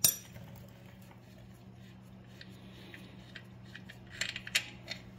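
Small metal clicks of a 7/16 wrench working the factory bleeder fitting on a T56 transmission's hydraulic clutch slave cylinder. There is a sharp click at the start and a short cluster of clicks about four seconds in, over a faint steady hum.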